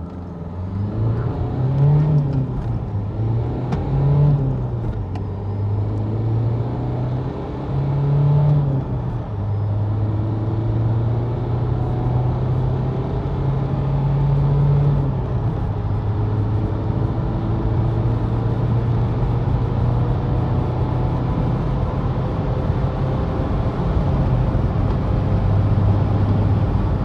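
Dacia Duster's 1.5 dCi four-cylinder turbodiesel accelerating hard through the gears. The engine note climbs and drops back at each upshift, four times in the first fifteen seconds, then keeps pulling at a steady pitch.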